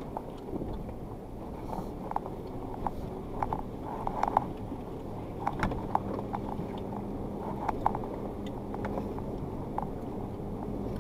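Suzuki Jimny's engine running at low speed as it crawls over rocks, heard from inside the cabin, with scattered short clicks and knocks from the vehicle jolting over the stones.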